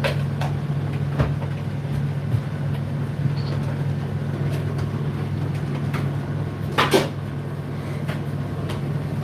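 Indesit IDC8T3 condenser tumble dryer running with a steady low hum. A few knocks sound over it, the loudest a quick double knock about seven seconds in.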